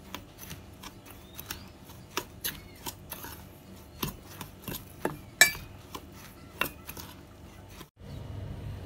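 Metal spoon scraping and clinking against a stainless steel bowl while stirring flour and chili powder together: irregular sharp clicks over a soft scraping, the loudest knock about five seconds in. It stops at a cut near the end.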